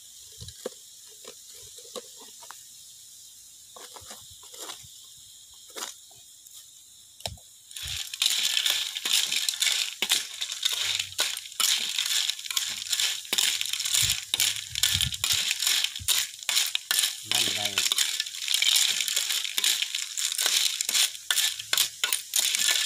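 Stir-fry sizzling in a wok over a wood fire. After a few seconds of near quiet with a few small taps, loud sizzling starts suddenly about eight seconds in. A metal ladle scrapes and clinks against the wok as the food is stirred.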